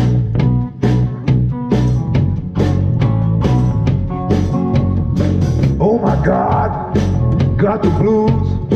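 Live blues-rock band playing: upright bass and chords under a steady drum-kit beat, with acoustic guitar. A wavering lead line joins about six seconds in.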